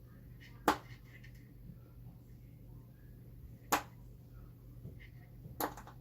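Three sharp metallic clicks, the last a quick double, from small screws and a screwdriver worked against the metal hard drive bracket inside an open iMac, over a faint steady low hum.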